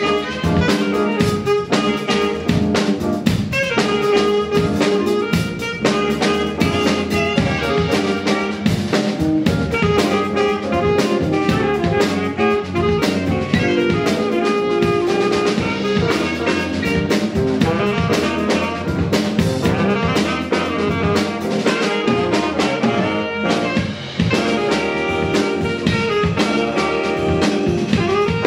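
A jazz band playing live: several saxophones together over electric bass guitar and a drum kit.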